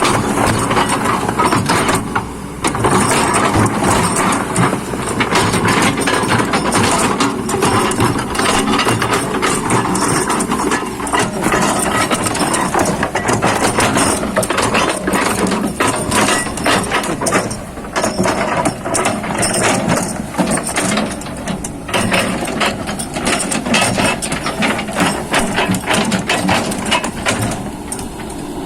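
Excavator working, its engine running steadily under a dense, continuous clatter of rapid metallic clicks and knocks.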